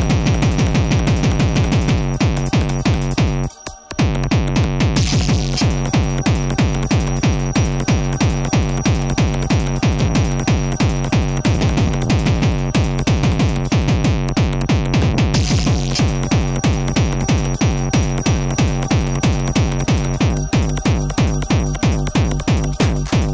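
Fast, hard-driving electronic tekno from drum machines and synthesizers: a steady, rapid beat under a constant high tone, with the beat dropping out for a moment a few seconds in.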